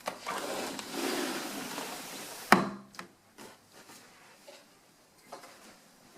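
A window air conditioner being slid across a wooden ledge: a scraping rub for about two and a half seconds, then one sharp knock as it is set down, followed by a few light taps.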